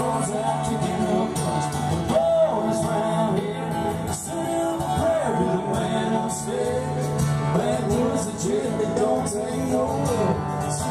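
A live band playing country-style music, with guitar and singing.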